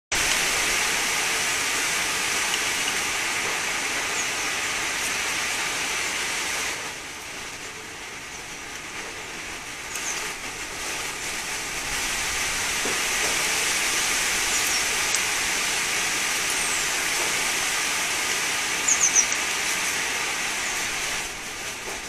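Wind blowing through garden trees and shrubs: a steady rushing hiss that eases for a few seconds and then picks up again. A few brief high chirps sound over it, a quick cluster of them near the end.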